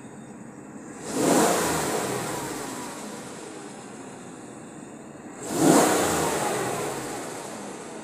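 Cadillac Escalade's V8 idling and revved twice, about a second in and again at about five seconds. Each rev jumps up sharply and then falls back to idle over a couple of seconds.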